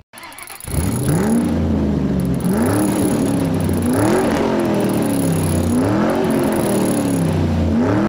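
Revving car engine sound effect: the pitch climbs and drops back about five times, like an engine shifting up through gears at high revs, then cuts off suddenly.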